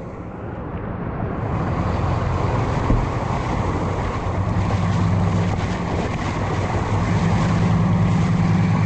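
Motor vehicle engine running with a steady low hum over a wash of noise. The sound builds over the first couple of seconds and swells again near the end.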